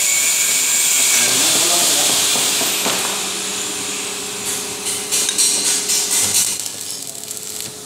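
Stick welding: the electrode's arc crackling and sizzling steadily, dying away about three seconds in as the arc is broken. After that, a quick run of sharp clicks and taps.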